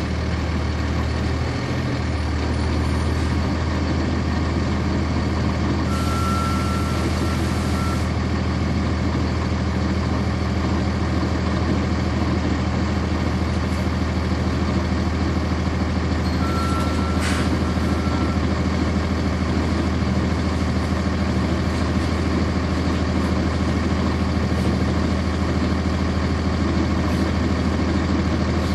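Cummins ISC diesel engine of a 1999 NovaBus RTS transit bus running steadily, heard from on board. About six seconds in, a hiss of air comes with a long high beep; a second long beep with a sharp click follows about ten seconds later.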